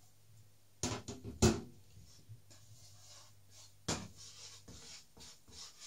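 Cookware knocks from a frying pan, wooden spoon and bowl: a quick cluster of sharp knocks about a second in, the loudest at the end of it, then another sharp knock about four seconds in as the pan is set on the hob, with light clattering between.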